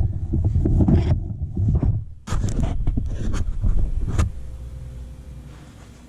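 Close handling noise: a low rumble with a run of knocks, clicks and scrapes, loudest just past the middle. It stops with a last knock about four seconds in and fades to a faint hiss.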